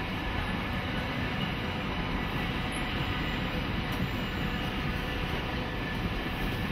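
Steel-wheeled passenger cars of a long train rolling past on the rails, a steady noise of wheels on track.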